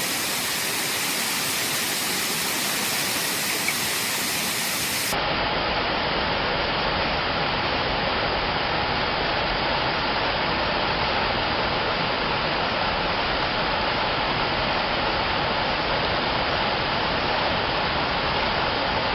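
Waterfall rushing steadily, water pouring and splashing in a continuous wash of noise. About five seconds in, the sound turns duller, with less hiss and more low rumble.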